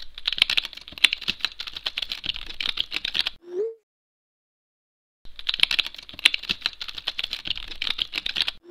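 Rapid typing on a computer keyboard in two bursts of about three seconds each, separated by a silent pause of nearly two seconds. Each burst is followed by a short rising tone.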